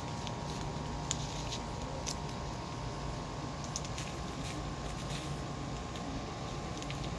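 Steady low outdoor background rumble with a faint hum, and a few faint short high ticks.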